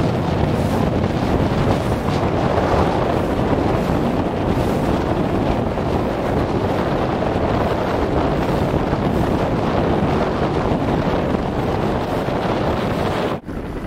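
Wind buffeting the microphone with water rushing along a boat's hull: a steady rumbling hiss that drops out for an instant near the end.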